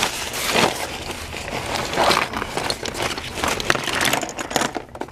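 A pile of screwdrivers being rummaged and tipped out of a container: irregular rustling with many sharp clicks and clatters of the tools knocking together.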